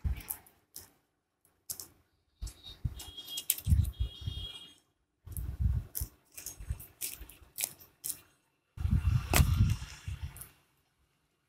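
A thin paper wrapper crinkling and rustling as it is peeled off a plastic phone charger, with small clicks from handling the charger and cardboard box. The sounds come in irregular spurts, and the loudest dull bumps come near the end as the charger is set back into the box tray.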